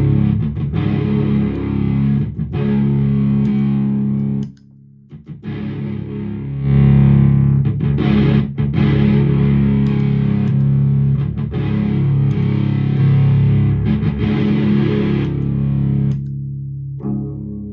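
Electric guitar played through an Evil Twin germanium-and-silicon fuzz pedal into a clean amp: thick, distorted, sustained fuzz chords. The playing drops out briefly about four and a half seconds in, then resumes until it stops near the end.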